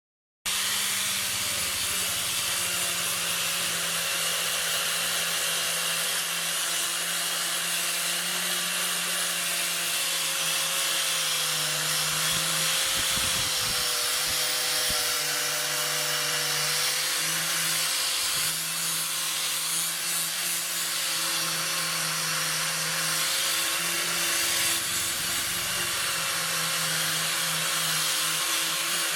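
Electric power tool running steadily with a hiss of abrasion, grinding or sanding away rust from an old axe; its motor pitch wavers slightly as the load changes.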